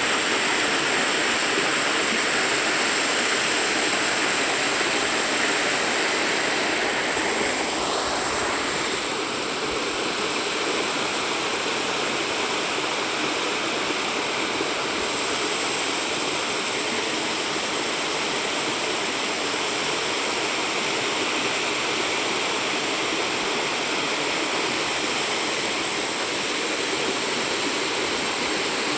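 Mountain waterfall: a steady rush of falling water, its tone shifting slightly about eight seconds in.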